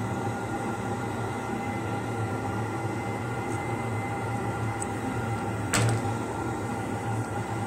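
Steady machine hum with a few fixed tones, and one sharp click about three-quarters of the way through as a metal hand instrument is set down on the tabletop.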